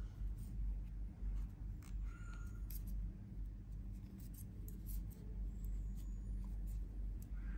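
Knitting needles clicking and scraping against each other as stitches are worked, a string of small irregular ticks over a low steady hum.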